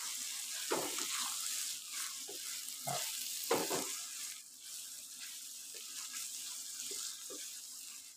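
Whole moong daal with freshly added yogurt sizzling in a pan, with a steady frying hiss, while a spoon stirs it and knocks and scrapes against the pan several times.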